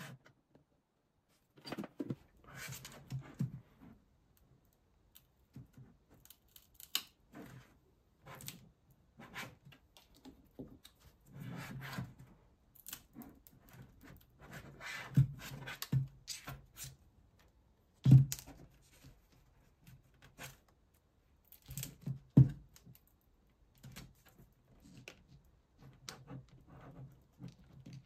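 Plastic handling noises as a plastic pry tool works a tablet's plastic frame loose: scattered clicks, scrapes and knocks, with a few sharper knocks in the middle and later on.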